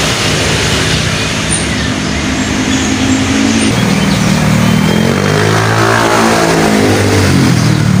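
A motor vehicle's engine running close by, its pitch sweeping up and back down about halfway through as it revs and passes. Faint, short, high bird chirps sound over it.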